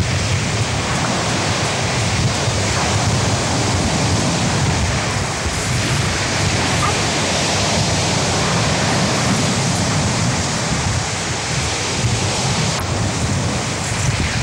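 Sea surf breaking and rushing on a shingle beach, a steady loud wash of noise, with wind buffeting the microphone into a low rumble.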